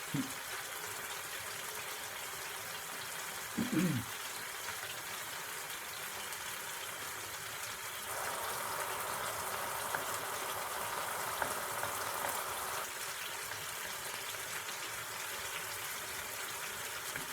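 Chopped tomatoes sizzling and simmering in a frying pan as they cook down soft: a steady hiss that grows louder for about five seconds in the middle. A brief vocal sound about four seconds in.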